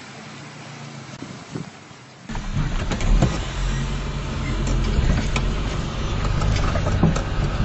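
A 4x4's engine idling faintly, then, after a sudden cut about two seconds in, a much louder sound of the vehicle driving over a rough dirt track: the engine running steadily under many knocks and rattles.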